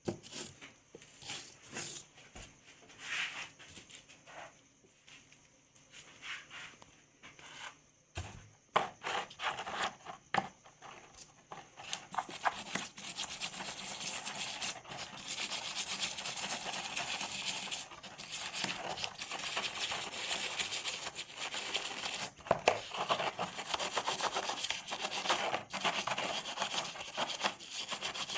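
Scraping and rubbing on an old rusty bearing during rust removal: short separate scrapes at first, then a continuous scrubbing from about twelve seconds in.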